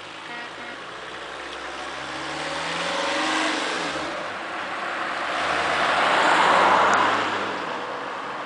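Renault Kangoo fire-service van accelerating away past the listener, its engine revving up, dipping briefly about four seconds in, then rising to its loudest with tyre noise about six to seven seconds in before fading down the road.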